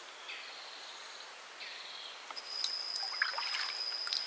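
Outdoor ambience: three short, high trilling calls from a small creature, then a steady high-pitched whine from about two and a half seconds in, with faint trickling and clicks.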